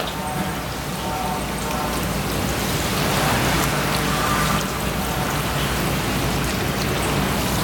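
A thin stream of tap water running and splashing steadily onto a gutted flathead fish while fingers rinse out its belly cavity.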